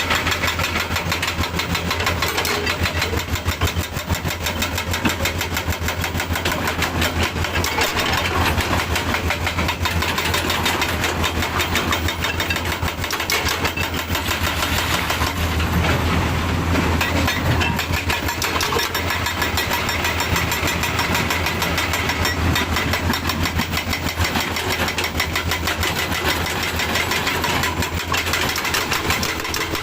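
Heavy diesel engine running steadily with a fast, even clatter.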